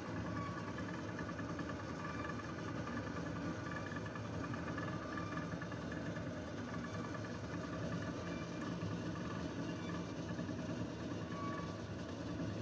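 Steady low rumble and hiss of a steamer pot boiling on a gas burner.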